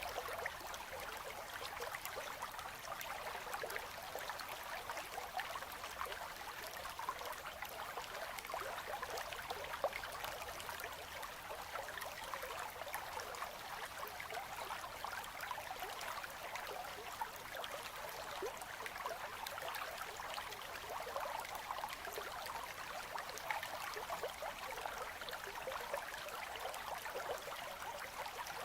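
Shallow winter river current running gently between ice, a steady fine babbling and trickling of water.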